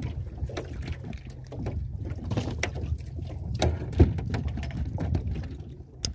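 Small waves slapping and knocking irregularly against an aluminium boat hull, over a low steady rumble. One sharper knock about four seconds in.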